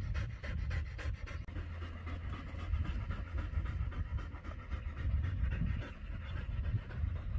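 A dog panting close to the microphone, over a low rumble.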